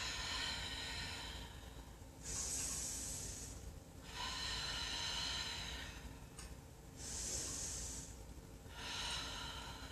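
A woman breathing deeply and audibly through a yoga pose, about five slow breaths in and out, each a second or two long.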